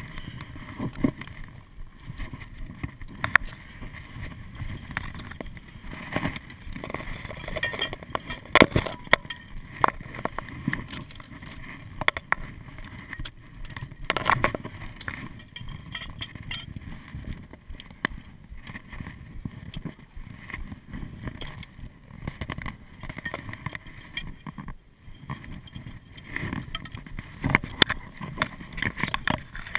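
A climber moving over loose volcanic rock: footsteps on scree and rock with irregular clinks and knocks of climbing gear, and rope and clothing rubbing against the camera.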